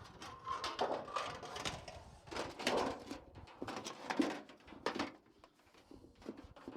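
Irregular scraping, rustling and clicking as a flexible chimney liner is handled and worked into place, in clusters of louder scrapes.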